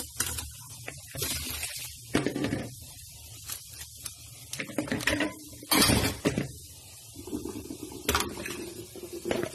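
Plastic bowl and strainer knocking and clattering against a stainless steel kitchen sink as blanched vegetables are drained after an ice-water bath, with a few splashes of water; the loudest clatter and splash comes about six seconds in.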